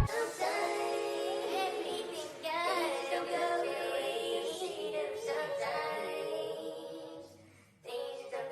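Background music with a high singing voice, cutting out briefly near the end and then starting again.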